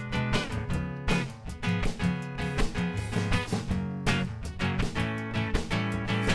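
Guitar strummed in a steady rhythm, playing a song's instrumental opening before the singing starts.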